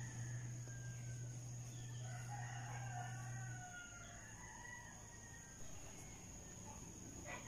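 A rooster crowing, faint and distant, several sliding calls over a steady low hum that cuts out about halfway through.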